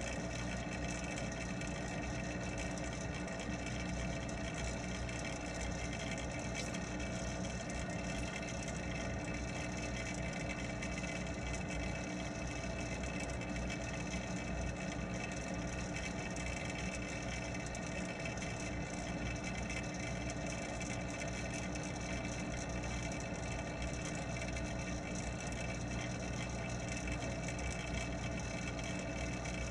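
Steady hum of the pond's water pump, heard underwater through the submerged camera: an unbroken drone made of several fixed tones, with no change in pitch or level.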